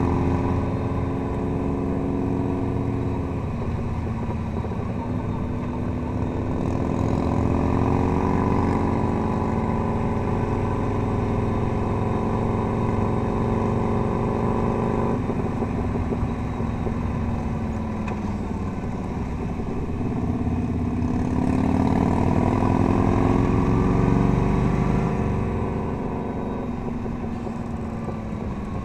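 Touring motorcycle's engine running under the rider, its pitch rising and falling as the throttle is opened and eased through a run of curves. The pitch drops suddenly a few seconds in and again about halfway through, then climbs again.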